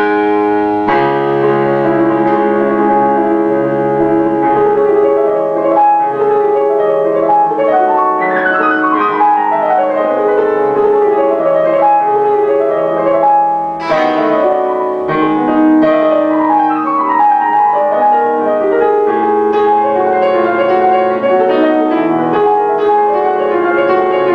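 Yamaha Clavinova digital piano playing a piece of held chords and melody, with a fast descending run about eight seconds in.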